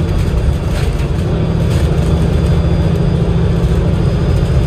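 Alexander Dennis Enviro500 MMC double-decker bus under way, heard from inside: a steady low drone from its Cummins L9 diesel engine and drivetrain, with road noise over it.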